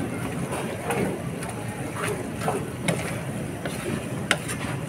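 Wooden spatula tossing and scraping noodles in a nonstick frying pan over a steady sizzle of the cooking sauce, with several sharp knocks of the spatula against the pan about a second apart.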